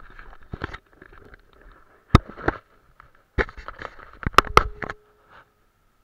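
Handling noise from a camera being carried about and set in place: rubbing and rustling with several sharp knocks and clicks, the loudest about two and four and a half seconds in, stopping a second before the end.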